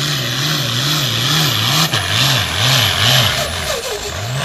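Turbocharged diesel hot farm tractor pulling the sled under full load, belching black smoke. The loud engine note wavers up and down a couple of times a second, swinging wider toward the middle, with a hiss running over it.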